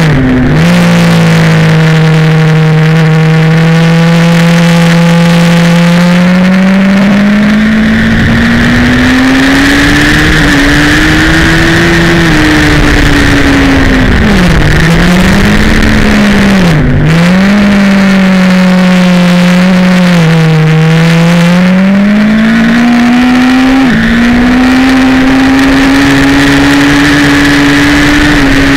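Sport motorcycle engine heard onboard at speed on a race track. The engine note climbs slowly for about twelve seconds, dips sharply twice in the middle, then rises again and holds high toward the end, with wind rushing past the whole time.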